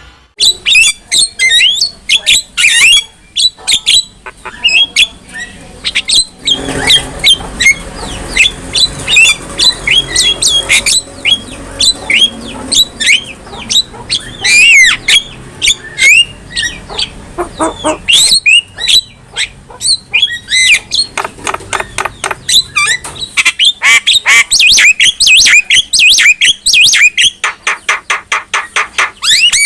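Javan myna in full song: a long, varied string of harsh squawks, whistled glides and chatter, ending in a fast run of rapidly repeated notes.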